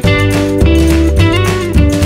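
Background music with a bass line and a steady beat under a sustained melody.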